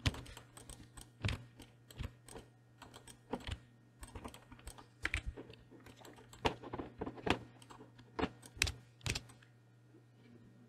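Computer keyboard keys and mouse buttons clicking at an irregular pace, with a few louder clicks, stopping about a second before the end. A faint steady low hum sits underneath.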